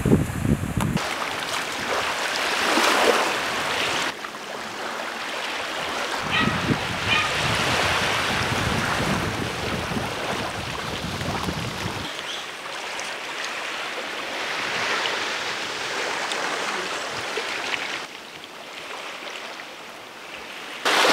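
Small waves washing onto a sandy beach, with wind buffeting the microphone in a low rumble during some stretches. The sound changes abruptly several times, about 1, 4, 12 and 18 seconds in.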